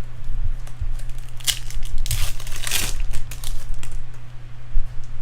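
Crinkling and tearing of a foil trading-card pack wrapper, loudest in a burst about two to three seconds in, over a steady low electrical hum.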